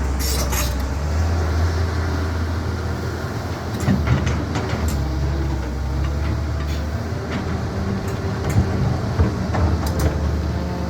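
CAT 320 hydraulic excavator's diesel engine running steadily under load, with a few short knocks and clatters of the machine at work.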